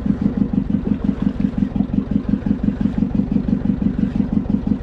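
A fishing boat's engine running steadily, an even rapid chugging of about eight beats a second.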